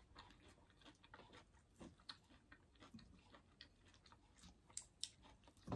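Faint chewing of arugula and salmon salad, with a few sharp clicks of a metal fork against a glass bowl near the end.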